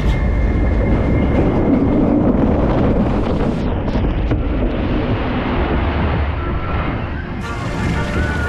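Steady rush of water with wind buffeting the microphone, as a water-ride boat travels along its channel.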